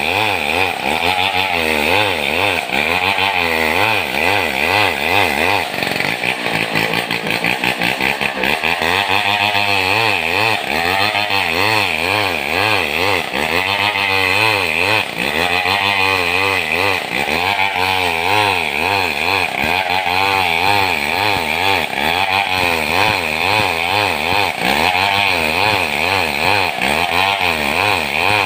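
Two-stroke chainsaw ripping a madang log lengthwise into planks. The engine runs steadily under load, its pitch rising and falling every second or so as the bar bites. About six seconds in it drops briefly to a lower pitch, then climbs back.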